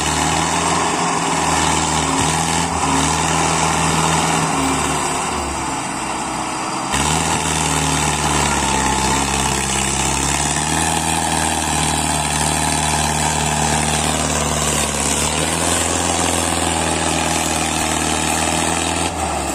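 Mahindra Arjun tractor's diesel engine running steadily under load, hauling a heavily loaded sugarcane trailer through the field; its pitch shifts a few times.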